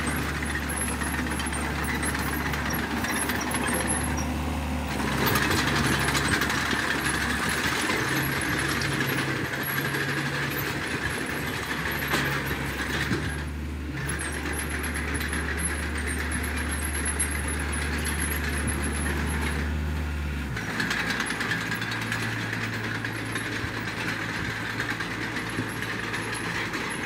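Mini crawler bulldozer's engine running steadily as it pushes dirt with its blade. The engine note shifts about five seconds in and changes again near twenty seconds in.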